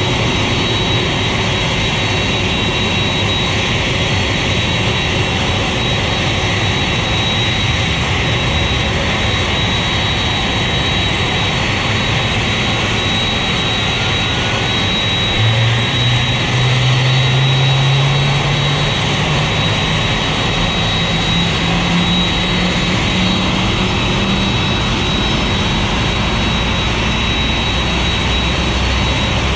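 Steady jet whine and rushing noise from a Boeing 747-400 on pushback, with a thin high steady tone. About halfway through, a low hum comes in and climbs slowly in pitch for several seconds, typical of a jet engine spooling up during start.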